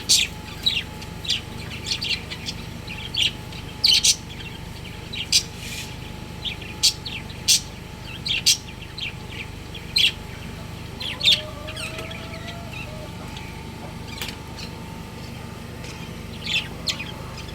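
Pet budgerigars chirping: short, sharp calls at irregular intervals, roughly one or two a second, over a steady low hum.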